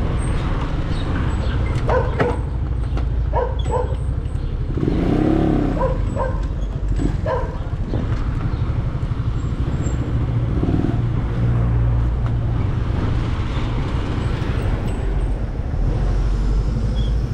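Motor vehicle engine running with a steady low rumble, moving along a street with traffic around. A few short pitched sounds cut in over it in the first half.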